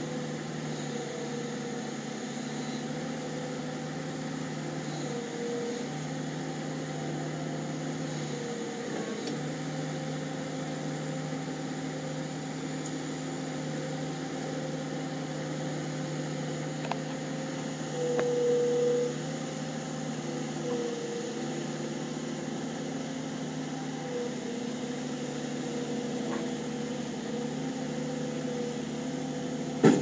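New Holland LS170 skid steer's diesel engine running steadily while it works its loader arms and tips a bucket of mulch. A louder whine swells briefly about two-thirds of the way through, and a short sharp knock comes at the very end.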